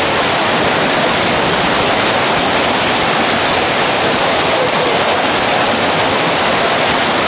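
Steady rushing of water in a heavy rainstorm: floodwater pouring over a low brick ledge onto a flooded paved walkway.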